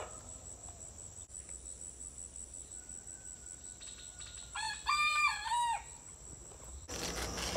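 A rooster crows once, about four and a half seconds in, in a call of about a second broken into several parts, over a steady high-pitched insect drone.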